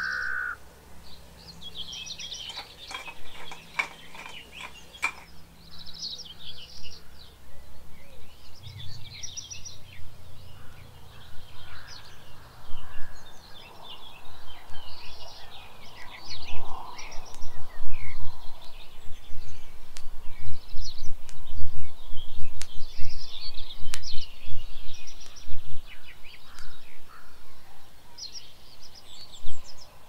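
Birds calling and chirping over and over, with a run of sharp clicks in the first few seconds and an uneven low rumble on the microphone from about a third of the way in.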